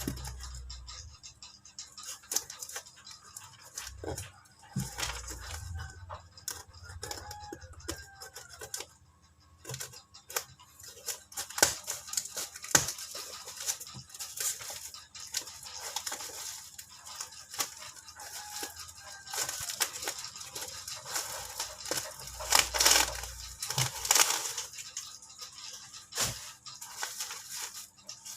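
Packaging being handled and torn open: rustling, crackling and tearing with scattered clicks, louder in bursts about twelve seconds in and again about twenty-two seconds in.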